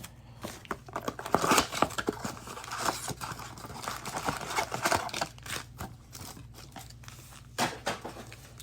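Cardboard blaster box of Optic football cards being torn open and foil card-pack wrappers ripped and crinkled, an irregular run of tearing, rustling and sharp crackles.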